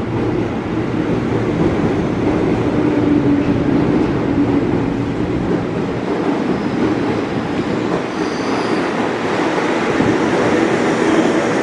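Electric commuter train (KRL EMU) running close past along a station platform: a steady, loud rumble of wheels and traction motors with a low hum early on, and brief faint high squeals about eight seconds in.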